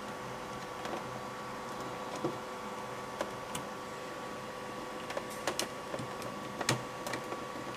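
Scattered small clicks and taps of plastic parts being handled as the bottom cover is fitted back onto a 3D printer's extruder and its retaining screw is turned, over a steady faint hum. The clicks come more often in the second half.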